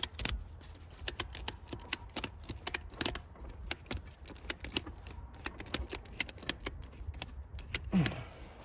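Ratchet strap being cranked tight around a tire's tread, a run of sharp metallic clicks a few a second, squeezing the tread so the loose bead is pushed out against the rim. A brief low falling sound comes about eight seconds in.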